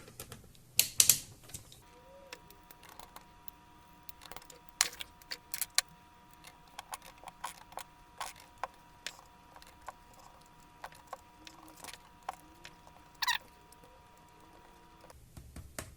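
Scattered light clicks and taps of a laptop's plastic and metal parts being handled and worked on, with a louder clatter about a second in and a short scrape near the end, over a faint steady hum.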